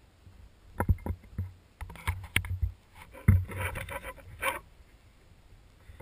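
Footsteps and rustling through forest undergrowth: irregular crunches, snaps of twigs and leaves brushing close to the microphone, coming in short clusters with a sharp knock about three seconds in, then dying away near the end.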